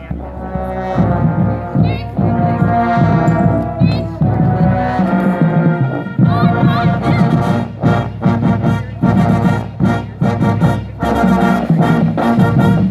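Marching band playing a brass tune over drums; from about halfway through, the drum beats come through as sharp, regular strokes.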